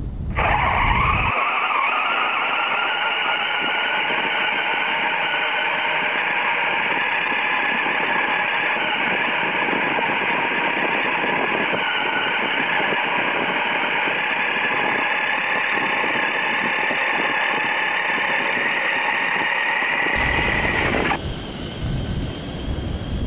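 Radio-controlled crawler truck's electric motors and gear trains whining steadily under the load of towing a sled with a child on it, picked up close through a camera mounted on the truck. The whine rises in pitch as it pulls away and cuts off abruptly near the end.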